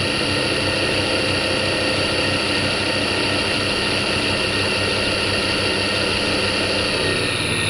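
Harrison lathe's electric drive motor running unloaded, belts off, powered from a variable frequency drive on its test run after rewiring: a steady whine over a low hum.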